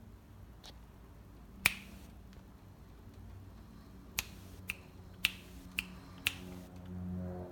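Finger snaps: one single snap, then five in a steady beat about two a second. Music with held tones starts up near the end.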